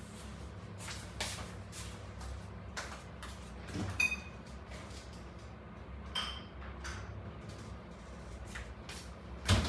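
Quiet kitchen handling noises over a low steady hum: scattered soft knocks and clicks, a small ringing clink about four seconds in, and a thump near the end.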